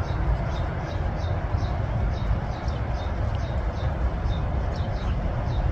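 Short high chirps or peeps from birds, repeating a few times a second over a loud, steady low rumble.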